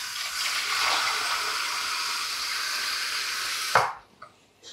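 Kitchen mixer tap running hard into a plastic measuring jug, filling it. The flow stops about four seconds in with a brief knock.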